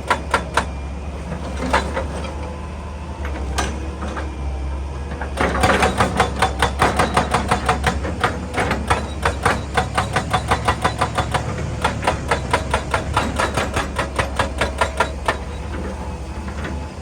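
Excavator's hydraulic breaker hammering rock in rapid, evenly spaced blows, several a second, over the steady drone of the excavator's engine. A few short bursts come in the first few seconds, then a long run of hammering starts about five seconds in and stops about fifteen seconds in.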